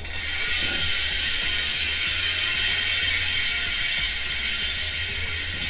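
Freehub of a Vicino alloy 20-inch (451) rear wheel ratcheting as the wheel spins freely, its pawl clicks running together into a loud, shrill buzz that starts suddenly and eases slowly as the wheel slows. It is this loud with no cassette fitted yet.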